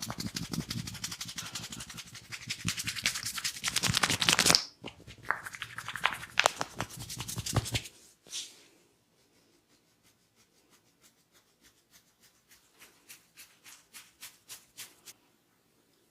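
Hands rubbing and scratching quickly during a massage, a dense run of strokes that stops abruptly about four and a half seconds in. A few separate strokes follow, then a run of faint quick ticks in the second half.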